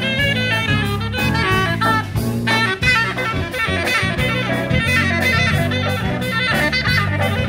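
Live band playing jazz, with a saxophone and brass melody over bass and a drum kit keeping a steady beat.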